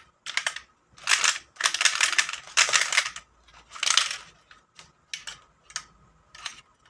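Metal 5-peso coins clicking and clattering as they are fed by hand through a universal coin acceptor during calibration, each one registered by the acceptor's counter. The rattling is loudest in the first few seconds, then thins to a few light clicks.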